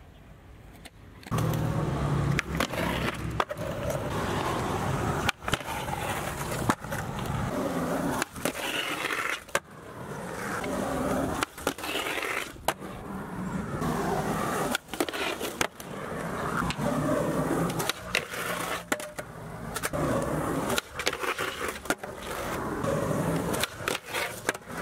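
Skateboard on concrete: polyurethane wheels rolling, trucks and deck grinding and sliding along a concrete ledge, with repeated sharp cracks of tail pops and landings. It starts about a second in and goes on through a string of tricks.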